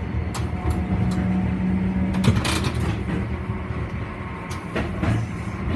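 Okayama Electric Tramway streetcar running along its street track, heard from inside the car: a steady low motor hum and rumble, with scattered clicks and one sharp knock about two seconds in.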